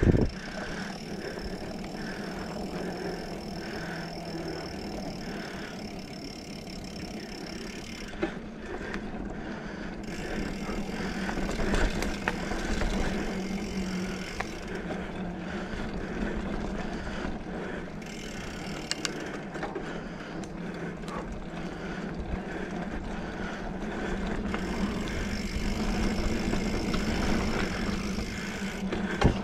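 2020 Specialized Fuse 27.5+ mountain bike ridden along a sandy dirt trail: steady tyre and drivetrain noise with scattered sharp clicks and rattles.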